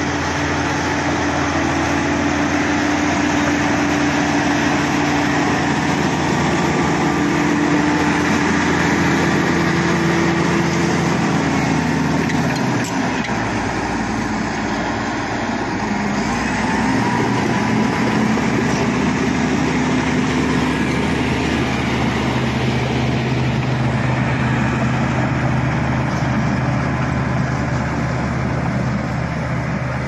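Shantui crawler bulldozer's diesel engine running steadily under load as the dozer pushes soil. The engine note changes pitch about halfway through, then runs steady again.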